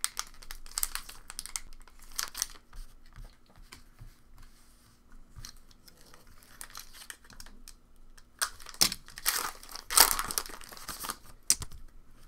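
Foil wrapper of a Pokémon booster pack crinkling in the hands and being torn open, in a run of short rustles that are loudest about two-thirds of the way through.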